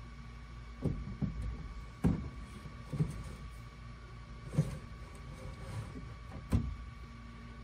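Metal avionics unit, a Garmin GNS480 case, sliding into its panel rack. It gives about six short knocks and scrapes of metal on metal as it is pushed home.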